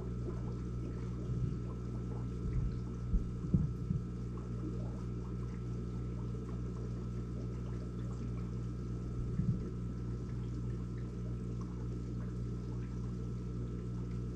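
Aquarium filter running: a steady low hum with water trickling and splashing into the tank. A few short, soft thumps come in the first four seconds and once near the middle.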